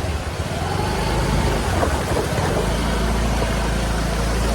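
A vehicle engine running at a steady low hum under a constant hiss of heavy rain and water.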